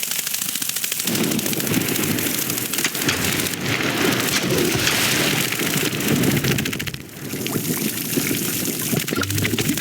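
Heavy rain falling, a dense hiss of countless drops hitting surfaces, briefly easing about seven seconds in before picking up again.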